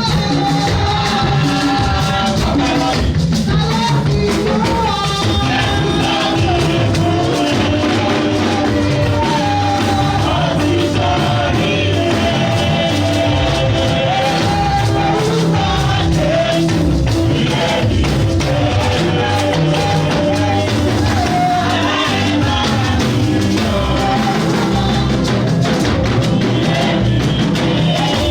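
Music: a melody, with singing, over a band with drums.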